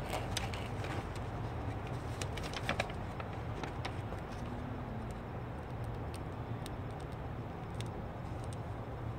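Light crackling and ticking of vinyl backing paper being peeled and handled, thickest in the first three seconds, over a steady low background rumble.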